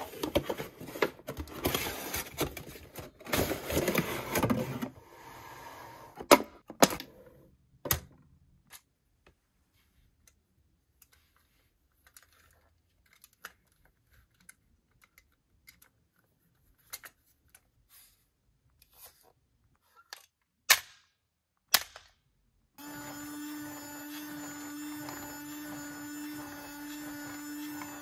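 Cardboard box and plastic packaging crinkling and rustling as a toy is unboxed, then scattered sharp clicks and taps of a plastic figure being handled. About 23 seconds in, the small electric motor of a remote-control Buzz Lightyear figure starts a steady whirring hum.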